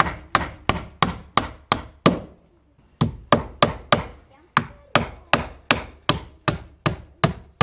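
Hammer blows on wood: steady, evenly spaced strikes about three a second, with a short pause about two seconds in.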